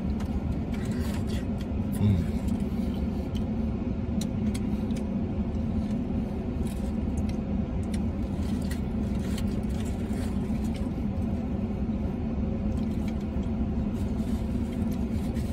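Steady low hum of a parked truck idling, heard from inside the cab, with faint scattered clicks of chewing and wrapper handling as a burrito is eaten.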